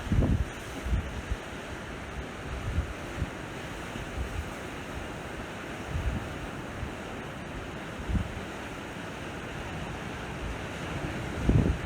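Sea waves washing onto a shore, a steady wash of surf, with irregular low thumps of wind buffeting the microphone, the strongest near the start and near the end.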